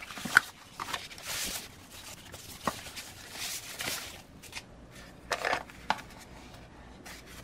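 Cardboard box and plastic packaging rustling, with a few light clicks and knocks, as a small LCD monitor and its cables are lifted out of the box.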